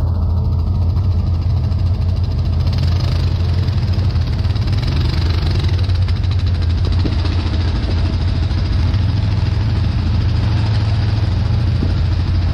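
ATV engine running steadily with a constant low drone.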